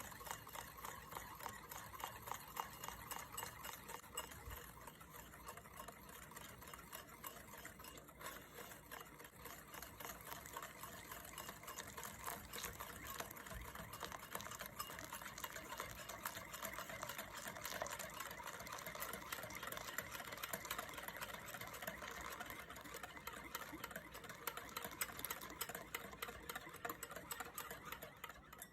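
Whisk stirring sugar into a mixture in a bowl, a fast, steady run of light clicks.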